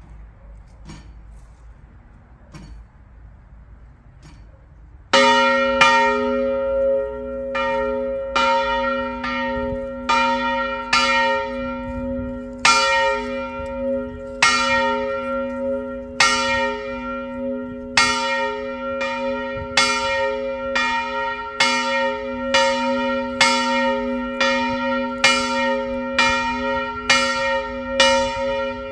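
A large bronze church bell of about 330 kg, cast by Karol Schwabe of Biała in the 1920s and tuned to b-flat¹, starts ringing about five seconds in. Its clapper strikes roughly once a second, each stroke ringing on over a steady low hum.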